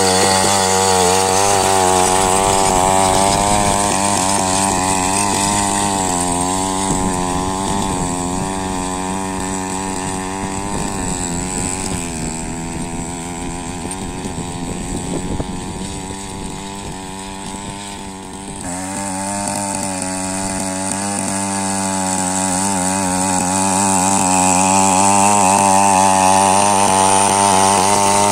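Small petrol engine of a walk-behind power weeder running under load as its rotary tines churn the soil, its speed wavering up and down. It grows fainter through the middle and comes back loud about two-thirds of the way in.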